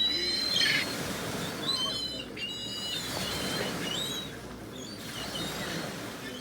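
A flock of seagulls calling, many short high, wavering calls overlapping one another over a steady background hiss.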